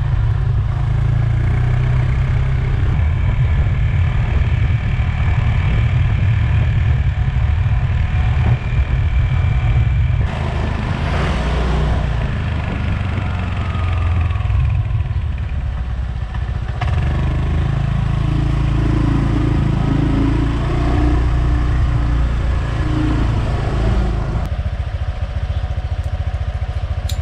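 Honda motor scooter running along a road, with wind rumbling on the rear-mounted action camera's microphone. The sound changes near the end as the scooter comes to a stop.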